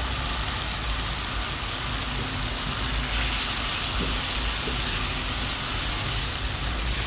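Fried eggplant pieces sizzling steadily in hot oil and spiced onion masala in a non-stick pan as they are added and turned with a spatula.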